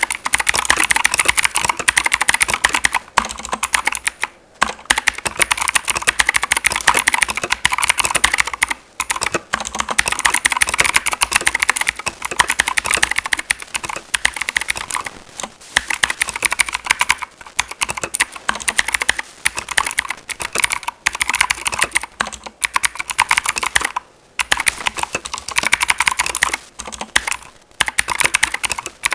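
Fast, continuous typing on a Keychron K2 V2 mechanical keyboard with clicky blue switches, each keystroke a sharp click, broken by a few brief pauses.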